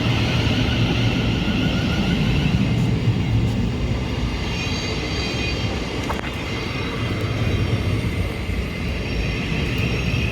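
Thameslink Class 700 electric multiple-unit train at a station platform: a steady rumble with high-pitched electric whining tones, strongest about halfway through.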